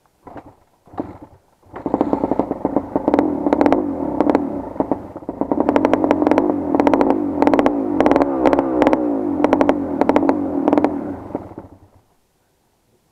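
Off-road motorcycle engine, close by, revved up and down over and over with sharp clattering spikes, for about ten seconds, then dying away about twelve seconds in.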